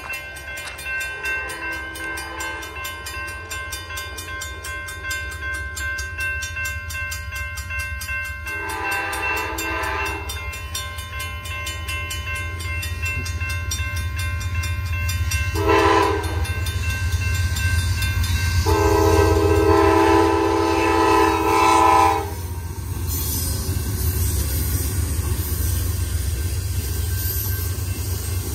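Grade crossing warning bell ringing steadily while an approaching bi-level passenger train sounds its horn: a faint distant blast, then a long blast, a short blast and a final long blast, the standard crossing signal. After the last blast the train runs through the crossing with a loud rush of wheel and rail noise.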